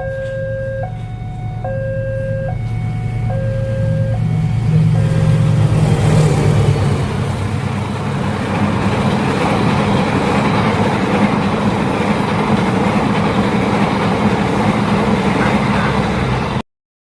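Railway level-crossing alarm alternating between two tones, heard over the low drone of a diesel locomotive's engine; the alarm fades under the train about five seconds in. A freight train then passes, with a steady, loud rumble of wheels on rail, until a sudden cut near the end.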